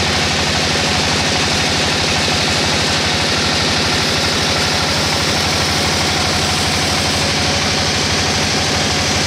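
Band sawmill ripping lengthwise through a bayur (Pterospermum javanicum) log. The blade hisses steadily in the wood over the machine's low, fast, even pulsing drive.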